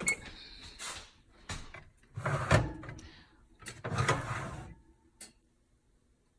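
Metal oven rack and baking tray sliding and clattering as a tray of fish is pushed into an oven: several scraping knocks, the loudest about two and a half seconds in.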